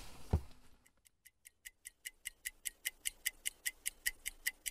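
Clock ticking quickly and evenly, about five ticks a second, fading in about a second in and growing louder. A brief low thump comes just before the ticking.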